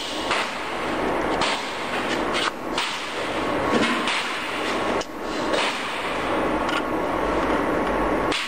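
Long wool scarf knitting machine running: a dense, steady mechanical clatter, with sharp knocks about once a second.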